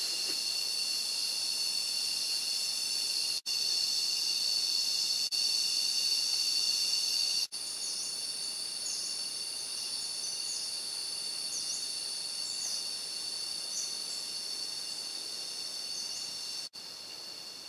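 Steady high-pitched drone of a tropical rainforest insect chorus, several pitches layered together. Short high bird chirps come in from about halfway. The sound cuts out briefly a few times.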